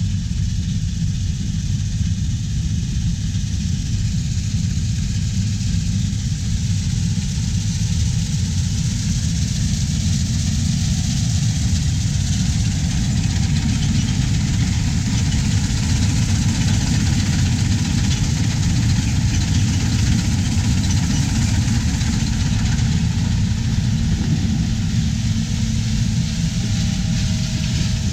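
Large farm diesel engine running steadily with a deep, even rumble.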